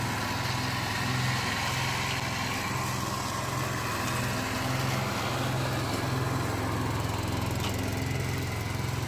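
Husqvarna front-deck riding mower's engine running at a steady speed while it cuts grass, passing close by.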